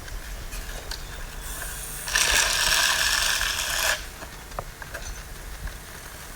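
Bicycle rear hub freewheel ratcheting in a fast, dense buzz for about two seconds as the wheel spins or coasts, stopping fairly suddenly, with a few faint clicks around it.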